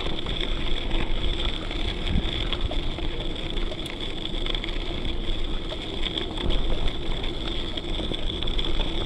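Steady wind and rolling noise from riding a bicycle, heard through an action camera's microphone, with a constant high hiss over it.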